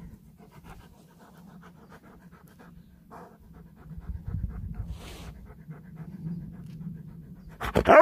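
Husky panting rapidly, about six quick breaths a second. A brief, louder voice cuts in near the end.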